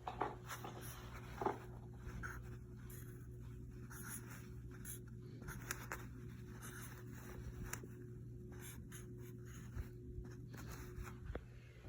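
Faint scraping and light clicks over a steady low hum.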